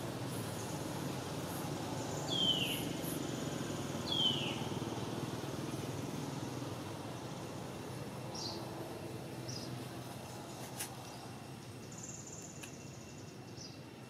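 Outdoor ambience with a steady low background rumble. Two loud, high bird calls slide downward about two and four seconds in, and a few short, fainter chirps come later.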